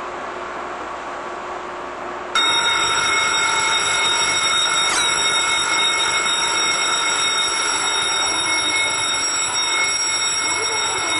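A station platform departure bell starts abruptly a couple of seconds in and rings steadily and loudly for about nine seconds without a break. In Japanese stations this bell signals that the train's doors are about to close. Before it there is only the steady hum of the platform and the standing train.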